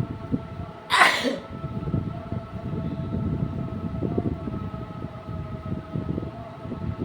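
One loud, sudden sneeze about a second in, falling away over a fraction of a second. Behind it is a steady hum of several held tones, with low rustling throughout.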